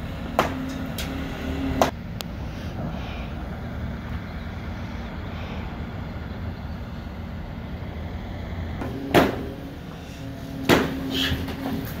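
Heavy diesel machinery running steadily, with sharp bangs and clanks: two in the first two seconds, then louder ones from about nine seconds on.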